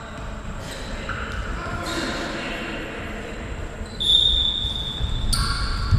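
Indoor football being played: a ball struck and bouncing on a hall floor several times, with players' voices echoing in the hall.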